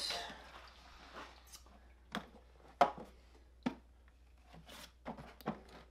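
Scattered clicks and metal knocks as the rear shock of a Honda CRF450 is worked loose inside the frame, the sharpest knock about three seconds in, with a rustle at the start.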